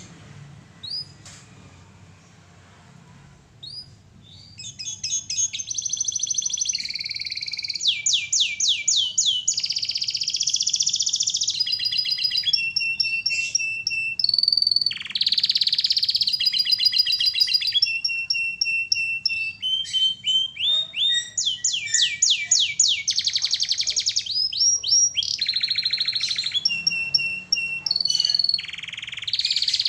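Domestic canary singing a long, varied song of fast trills, rolls, buzzy passages and repeated whistled notes. The song starts about four seconds in, after a couple of short calls.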